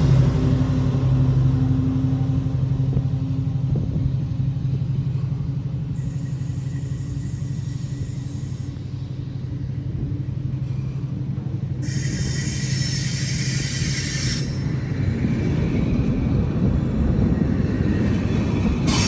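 A train passing: a steady low engine hum that fades over the first few seconds, then a continuing low rumble.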